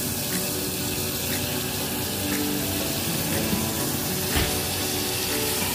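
Chopped onion and vinegar sizzling in an aluminium pot on a gas stove, a steady hiss.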